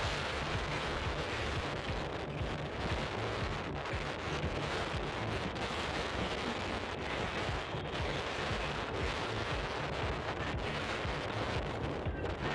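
Strong wind buffeting the microphone: a steady, unbroken roar, heaviest in the low end.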